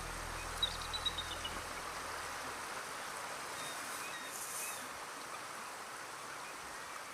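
Steady rushing of a stream's rapids as the tide drops. Background music fades out over the first two seconds or so, and a short series of high bird notes sounds about a second in.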